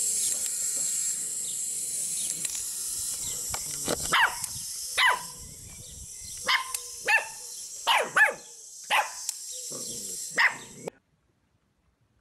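Puppy yapping: about eight short, high-pitched yaps spread over several seconds, over a steady high hiss. The sound cuts off suddenly near the end.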